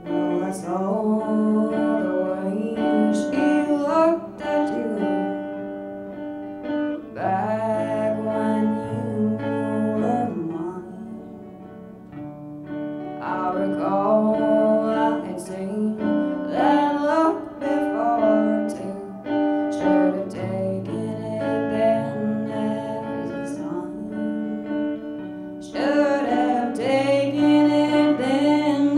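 A woman singing live with two guitars: her archtop hollow-body guitar and an acoustic guitar played alongside.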